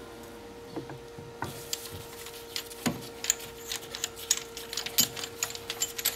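Hand-turned brake caliper piston wind-back tool screwing a rear caliper piston back in: irregular small clicks and scraping of metal on metal, starting about a second and a half in.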